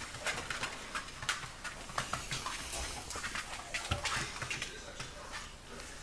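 Young puppies scuffling on a smooth hard floor: many short, irregular scratchy clicks and rustles of small claws and bodies sliding and tapping on the surface.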